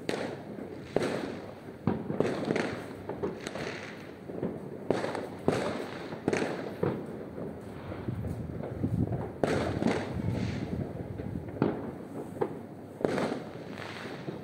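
Fireworks going off continuously, with many overlapping bangs and booms, about one or two a second, and crackling and rumbling between them, some near and some farther off.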